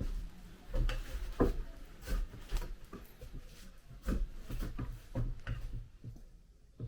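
Irregular short knocks, clicks and rustles with dull low thumps, at most about two a second, dying away near the end.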